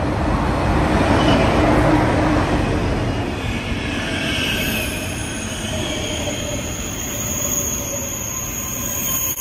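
SNCF TGV Duplex double-deck high-speed train pulling into the platform and passing close by as it slows to a stop. A rush of running noise peaks in the first few seconds, then steady high squealing comes in from about four seconds in.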